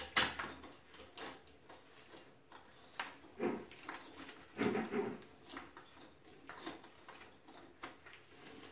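Small clicks, knocks and rubbing from hands pushing a corrugated washbasin drain hose and its rubber gasket into the wall drain fitting and tightening it, with a sharper click just after the start and a couple of brief squeaky rubs partway through.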